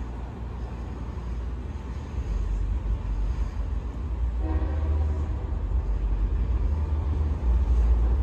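A Long Island Rail Road diesel train's horn sounds a long blast from about halfway through, over a low rumble that grows louder as the train approaches.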